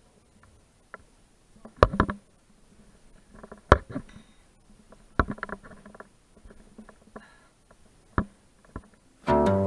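Climbing gear clinking as a climber moves up rock: scattered sharp clicks and knocks of carabiners and quickdraws, some with a brief metallic ring, with light scuffs of hands and shoes on the rock between. Plucked-string music cuts in abruptly just before the end.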